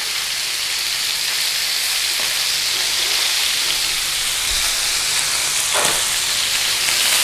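Flour-dusted, seasoned bone-in chicken thighs sizzling in hot oil in a nonstick frying pan, a steady hiss that grows slightly louder as they brown.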